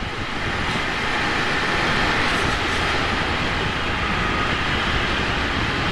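Steady wind rush and road noise from a Ducati Monster 797 motorcycle under way, with its air-cooled L-twin engine running underneath.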